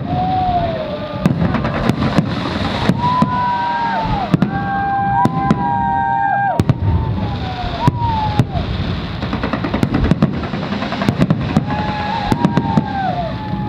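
A fireworks display going off: rapid bangs and crackling bursts overlapping one another over a continuous rumble, with several long held tones sounding above them.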